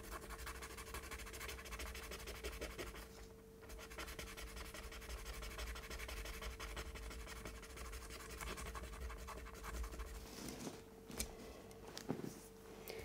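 Fine P1000 sandpaper rasping rapidly back and forth over a small plastic kit part, taking off material so that a stiff-fitting pin will turn freely; the rubbing pauses briefly about three seconds in. It gives way to a few light clicks and taps near the end.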